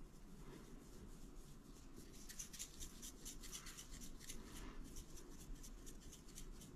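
Faint rattling of a plastic spice shaker as seasoning is shaken out of it, in a quick run of short shakes from about two seconds in until near the end.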